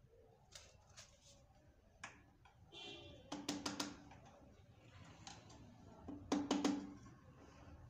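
Steel screwdriver knocking against metal parts of an opened Toyota A245E automatic transmission: a few scattered clicks, then a quick run of about four taps a little over three seconds in, and a louder run of ringing taps about six and a half seconds in.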